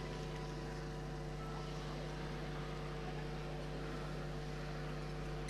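Steady background hum made of several constant tones over a faint hiss, unchanging in level throughout.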